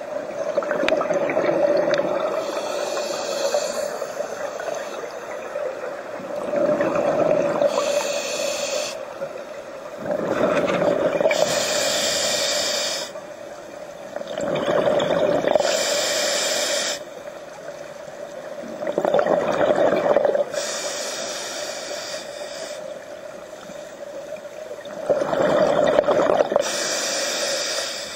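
Scuba diver breathing through a regulator underwater, about six breaths roughly every four to five seconds, each a long hissing draw followed by a shorter rush of exhaled bubbles.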